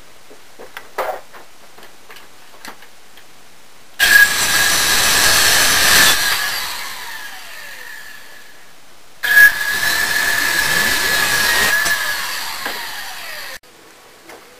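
Handheld electric power tool working wood in two runs, each with a steady high whine. The first starts suddenly about four seconds in and dies away; the second starts just after nine seconds and stops abruptly shortly before the end.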